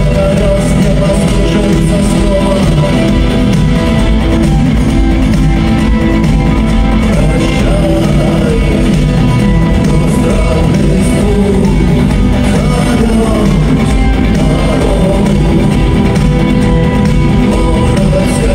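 Loud live rock music: a band with guitar and singing, played in a large arena hall.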